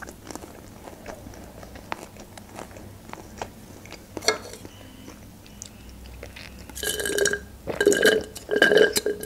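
Close-up mouth sounds of chewing: soft, wet clicks. About seven seconds in come four quick pulls of drink sucked up a straw from a can, with gulping.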